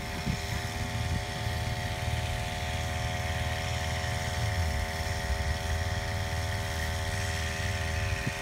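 Small brush-cutter engine running steadily at a constant speed, driving a homemade water pump that feeds a spray hose.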